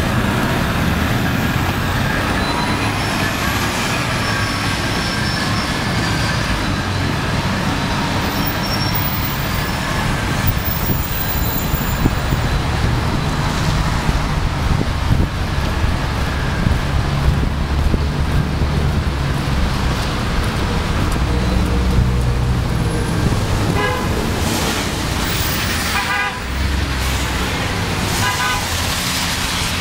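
City street traffic running by, with delivery-truck horns honking three short times near the end: two toots from one UPS truck, then one from a second.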